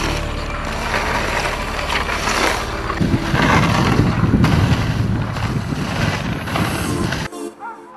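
Wind rushing over the microphone of a moving dog sled, with the runners hissing over packed snow, swelling a few seconds in. It cuts off abruptly near the end and electronic music takes over.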